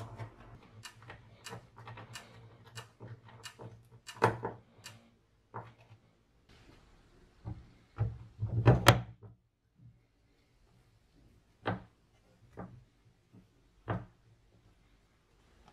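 Screwdriver driving screws into a metal bracket on a lawn mower's steel deck, with quick light clicks, then knocks and clunks of metal and plastic parts as the handle and its drive-control bracket are fitted; the loudest clatter comes about eight seconds in, followed by a few separate knocks.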